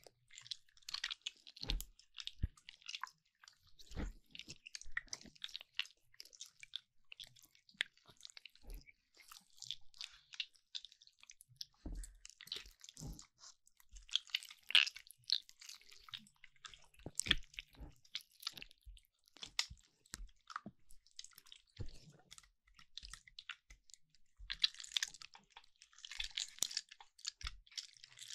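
Slime being squished and stretched by hand, giving irregular small wet clicks and crackles, busier around the middle and again near the end.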